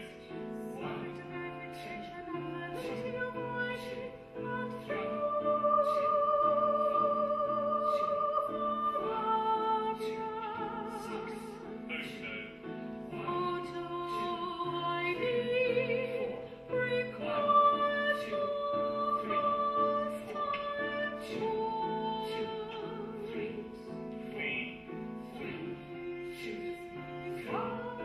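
Female operatic soprano voice singing long held notes with vibrato over instrumental accompaniment.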